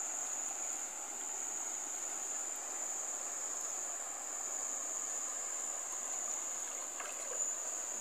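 Insects in the riverbank vegetation making a continuous high-pitched trill, one steady unbroken tone, over a faint even hiss.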